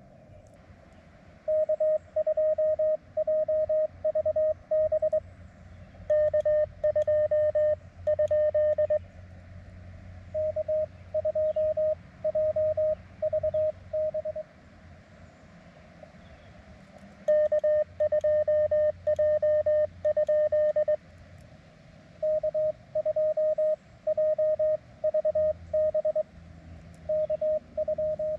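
Morse code (CW) from an amateur radio transceiver: a single steady mid-pitched tone keyed on and off in dots and dashes. It comes in several runs with short pauses between them, as in a contact being exchanged.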